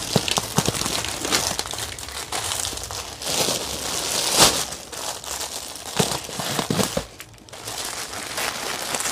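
Clear plastic sari packaging crinkling and rustling as a string-tied bundle of packed saris is handled, in irregular crackles and swishes with a brief lull about seven seconds in.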